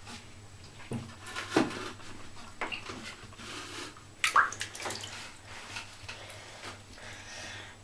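Water splashing and sloshing in a bathtub as a cat plays in it, in irregular splashes, the loudest a little past four seconds in.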